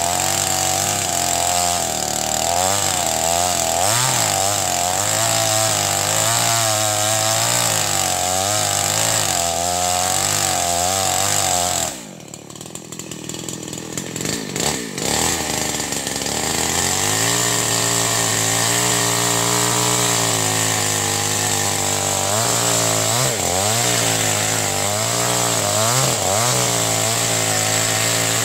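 Chainsaw cutting into an agarwood (gaharu) tree, its engine running at high revs with the pitch wavering under the load. About twelve seconds in it drops back towards idle, then revs up again and cuts on a few seconds later.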